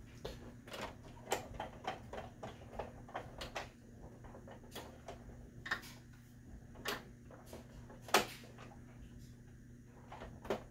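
Scattered plastic clicks and knocks from a 1984 Kenner Imperial Shuttle toy as its wings are lifted and worked by hand, the loudest knock about eight seconds in, over a faint steady hum.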